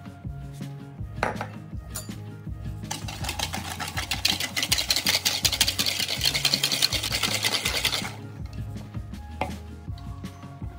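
Wire balloon whisk beating egg yolks and sugar in a ceramic mixing bowl: rapid, continuous clicking and scraping of the wires against the bowl. It starts about three seconds in and stops about eight seconds in.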